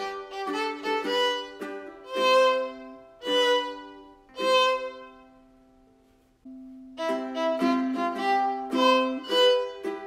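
Background instrumental music: a melody of separate accented notes, with one long note fading away about halfway before the tune picks up again.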